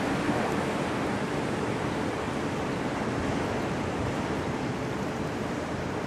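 Steady rush of wind on the microphone and choppy lake water. Under it, a faint low hum from the passing bulk freighter fades out about a second in.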